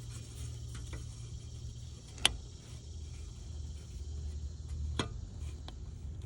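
A few small clicks and taps of handling as a transfer-pump hose is worked into a rear differential fill hole: one sharp click about two seconds in and another near the end, over a low steady hum.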